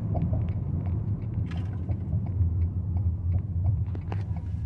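Steady low rumble inside the cabin of a 2024 Toyota Venza hybrid on the move, road and drivetrain noise at cruising speed, with scattered light clicks.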